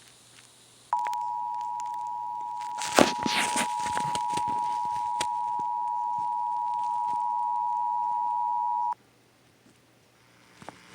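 Emergency Alert System attention signal: the steady two-tone alert of 853 and 960 Hz sounded together. It starts about a second in, holds for about eight seconds and cuts off sharply, marking the start of a required monthly test. A few faint knocks fall partway through.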